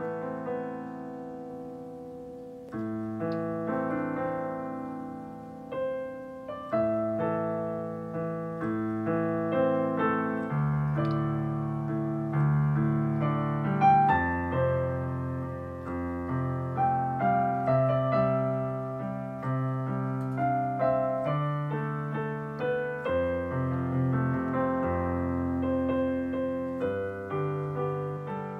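A digital piano played solo with both hands: a slow piece of held chords with a melody on top. A deeper bass line comes in about ten seconds in.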